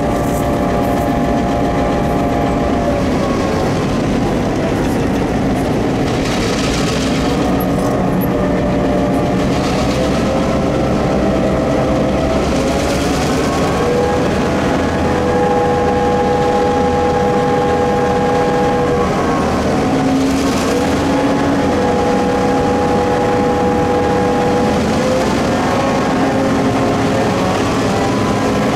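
Diesel-electric locomotive running loudly, its engine note holding steady and then gliding up or down to a new pitch several times.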